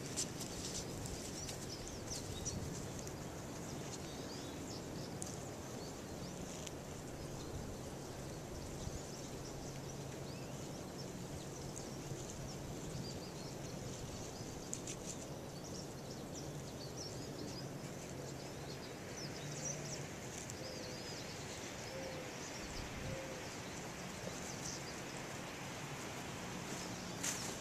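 Steady outdoor background noise with a low hum, faint scattered clicks and rustles, and a few faint bird chirps.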